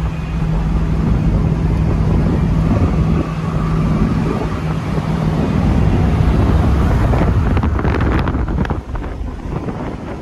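1958 Ford Thunderbird convertible's 352 V8 droning steadily at highway cruising speed, heard from the open cabin with wind rushing over the microphone. The engine drone fades about seven seconds in, leaving buffeting wind.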